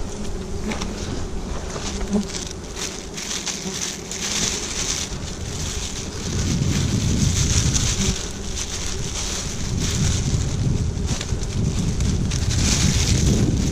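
Wild honeybees buzzing steadily around freshly cut honeycomb, over the crinkling of a plastic bag being handled. A low rumble of wind on the microphone grows from about halfway.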